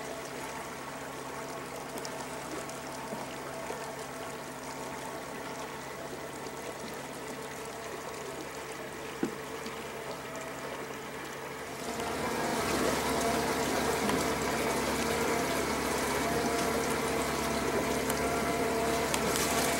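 Outboard motor of a 17.5-foot Arima Sea Chaser running steadily at slow cruising speed, with water washing along the hull. About twelve seconds in, the motor grows louder.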